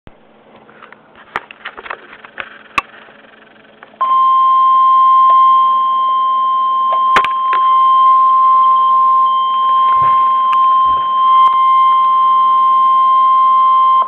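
A few faint clicks and knocks, then about four seconds in a loud, steady single tone starts abruptly and holds for about ten seconds. It is the NOAA Weather Radio 1050 Hz warning alarm tone, played through a speaker, signalling that a warning broadcast follows.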